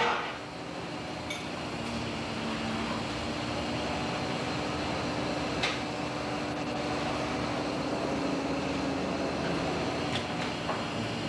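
Steady hum of a longliner's engine and deck machinery running, with a few sharp clanks over the top near the start, about halfway, and twice near the end.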